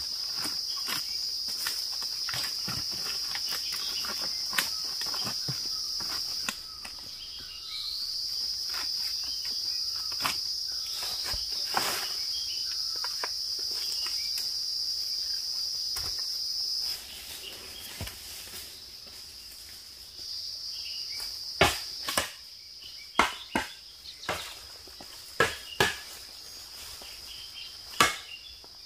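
A steady high-pitched insect drone that cuts out twice and starts up again. Under it, dry bamboo leaves crackle and rustle as they are gathered into a woven basket. Several loud sharp cracks come in the last third.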